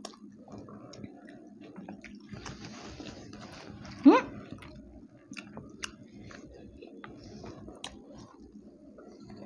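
Two people chewing and biting crispy sandwiches, with scattered small clicks of cutlery on glass plates. About four seconds in, one of them gives a short, loud rising vocal sound.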